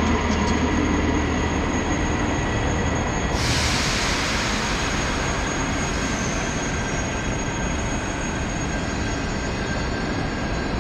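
NMBS class 86 (MS86) electric multiple unit rolling slowly into the platform with a steady low rumble; a little over three seconds in, a loud high hissing sets in suddenly and carries on as it comes in.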